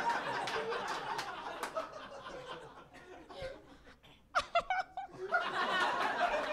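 Audience laughing in a small room, in two waves: the first laughter fades over the first few seconds, a few short laughs break out, and a second wave swells about five seconds in.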